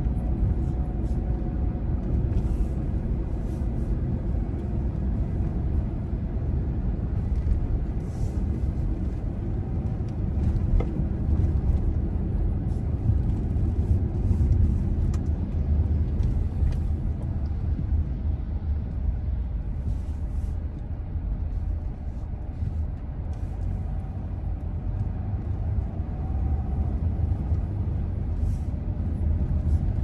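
Steady low rumble of a vehicle on the move, swelling a little around the middle.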